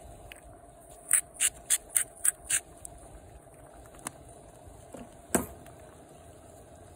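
A cast iron skillet of seafood and ravioli simmering on a Coleman propane camp stove, with the burner's steady faint hiss underneath. About a second in, six quick, sharp, bright sounds come in a row, about a third of a second apart; these are the loudest thing heard. A single thump follows about five seconds in.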